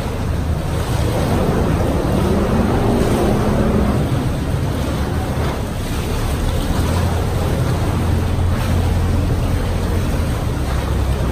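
Tour boat's engine running steadily at low speed, with sea water sloshing and splashing against the rock wall close alongside.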